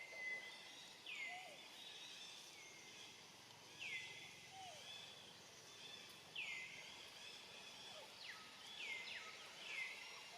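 Repeated short, high chirping calls, each dropping in pitch and then levelling off, coming every one to two seconds and bunching together near the end, over faint outdoor background noise.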